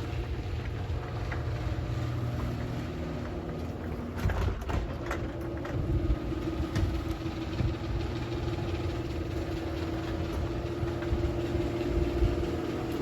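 Genie garage door opener motor running the door down, then clicks and clunks about four seconds in as it stops and reverses, then running on with a steady, higher-pitched hum as it drives the door back up.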